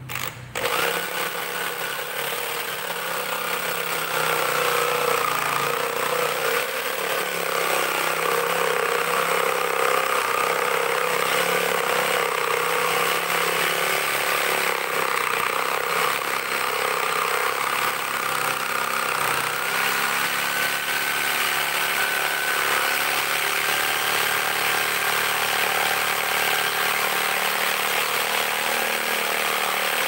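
Corded electric jigsaw sawing through a thick wooden plank. It starts about half a second in and then runs steadily under load, its motor whine wavering slightly as the blade cuts.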